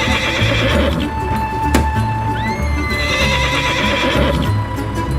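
A horse whinnying twice, the first call trailing off about a second in and the second starting a little past two seconds, over background music with a steady beat.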